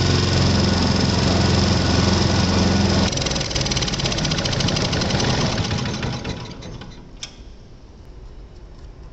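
Robin G350L small petrol engine running steadily on test, its note changing about three seconds in and then dying away around six to seven seconds in. The revs are running up because of a carburettor fault that the owner puts down to a poorly cleaned main jet or mixing pipe.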